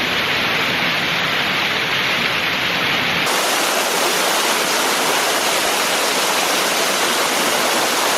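High Force waterfall on the River Tees rushing: a loud, steady noise of falling water. About three seconds in the sound abruptly loses its low rumble and turns thinner and brighter, then holds steady.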